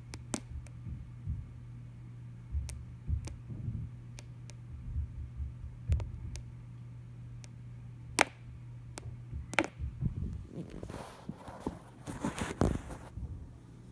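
Irregular dull thumps and a few sharper knocks of stomping and pounding from a neighbouring apartment, muffled through the building's walls or floor, over a steady low hum. The sharpest knock comes about eight seconds in, and rougher bumping follows for a few seconds after ten seconds in.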